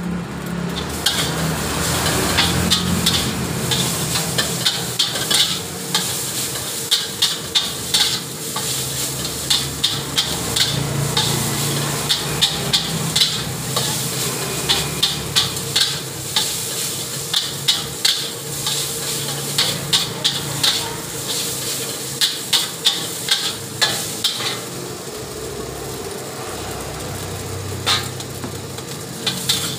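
Metal spatula scraping and clanking against a steel wok as fried rice is stir-fried, over a steady frying sizzle. The strikes come quickly, two or three a second, and thin out in the last few seconds.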